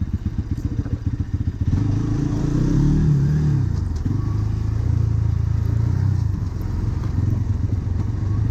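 Bajaj Pulsar NS200's single-cylinder engine running through its stock exhaust. It revs up to a peak about three seconds in, eases back, then settles to a steady pull.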